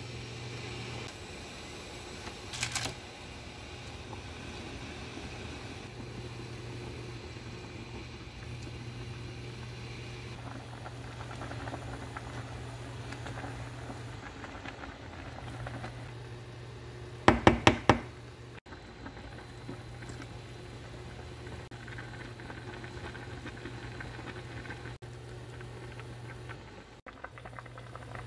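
Broth at a rolling boil in a saucepan, bubbling steadily over a constant low hum. There is one sharp knock a few seconds in, and a quick run of about four sharp knocks a little past halfway, the loudest sound.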